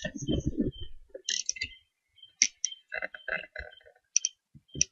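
A handful of sharp clicks and light knocks at uneven intervals, with a low rumble in the first second.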